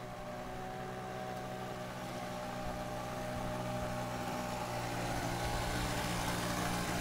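Small motor scooter engine running steadily at low speed as it is ridden, growing gradually louder as it comes closer.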